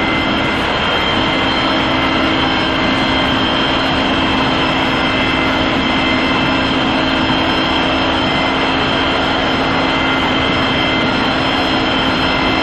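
Heavy machinery running steadily: a loud, even drone with several constant tones that does not change.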